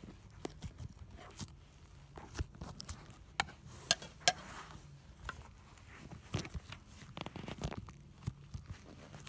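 Slime being squished and worked by hand: irregular sticky crackles and clicks, with two sharp pops about four seconds in.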